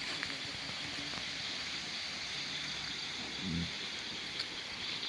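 Steady night chorus of crickets and other insects, an even high hum, with a brief low sound about three and a half seconds in.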